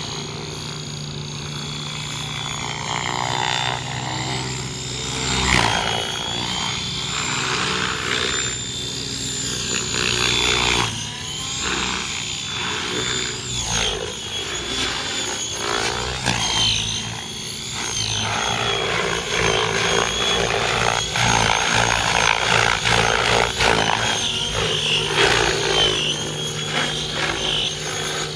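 Align T-Rex 700E electric RC helicopter in flight: its brushless motor whine and main rotor blade swish rise and fall in pitch as it is thrown through aerobatic manoeuvres.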